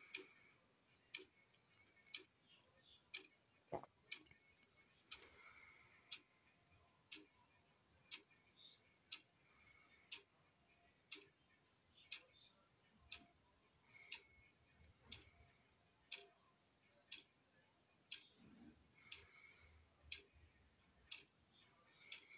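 Quiet, regular ticking at about one tick a second, with one louder knock about four seconds in.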